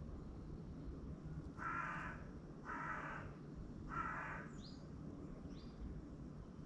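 Carrion crow cawing three times, about a second apart. Faint short high chirps from a small bird follow.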